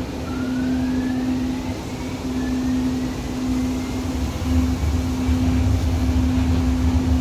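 Interior of a Siemens S200 light-rail car in motion: a thin motor whine rises in pitch over the first two seconds, then holds, over a steady hum. A low wheel-on-rail rumble grows louder about halfway through.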